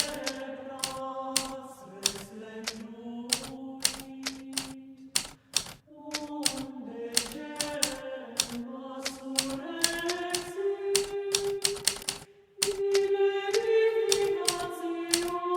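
Hermes Baby portable typewriter keys striking in quick irregular runs, about three or four a second, with brief pauses twice. Soft background music with held notes changing chord plays underneath.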